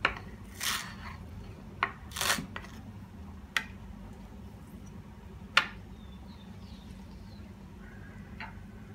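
Chef's knife chopping fresh leafy herbs on a bamboo cutting board: a handful of sharp knocks of the blade on the wood, a second or two apart, with a couple of short swishes in the first half, over a low steady hum.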